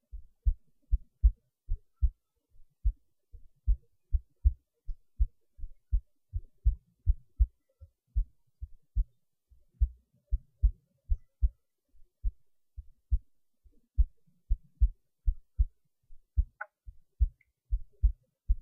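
Recorded heartbeat: a steady run of low, dull thumps, often in close pairs, several a second, with one faint click near the end.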